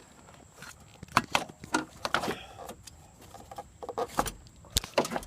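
Car alternator being worked by hand through a tight gap in the engine bay: irregular metallic knocks and clicks as it bumps against engine parts, with a short scrape about two seconds in.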